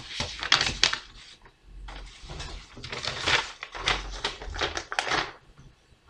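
String or rope being handled and knotted by hand: irregular bursts of rustling and scraping, one cluster in the first second and a longer run from about two to five seconds in.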